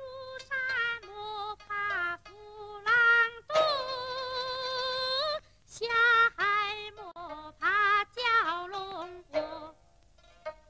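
A woman sings a Guangxi folk mountain song (shan'ge) solo, phrase by phrase with short breaks. There is a long held, wavering high note in the middle, and she stops about a second before the end.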